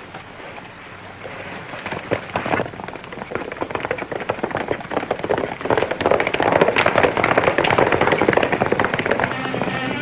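Hoofbeats of horses at a gallop, a dense rapid clatter that grows louder over the first several seconds.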